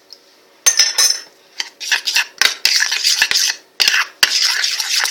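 A spoon stirring glue and water for slime in a container, clicking and scraping against its sides in quick irregular strokes. It starts after a short quiet moment at the beginning.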